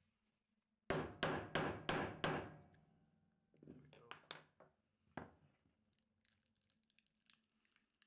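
Rubber mallet knocking a plastic wedge into the seam of a 3D-printed mould to split it apart: five sharp blows about three a second, then a few lighter knocks and one more. Near the end come faint clicks and scrapes as the plastic mould pieces are handled.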